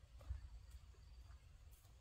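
Near silence: faint outdoor ambience with a low rumble and a few faint ticks.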